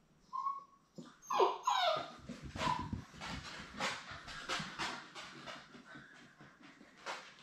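Seven-week-old Labrador Retriever puppies whimpering and yipping. There is a short cry about half a second in and several falling whines between one and two seconds, then a busy patter and scrabble of paws as the pups move about and play.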